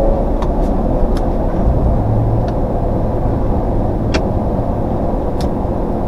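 Steady road and tyre rumble inside the cab of a 2016 Ford F-150 pickup driving at highway speed, with a few faint clicks.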